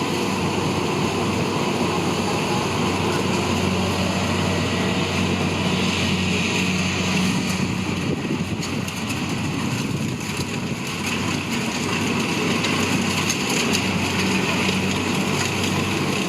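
Kubota DC-70 combine harvester's diesel engine running steadily under load, a constant hum over the noise of the machine.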